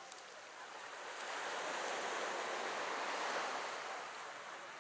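Water washing against the shore, a noisy rush that swells for a couple of seconds and then eases off.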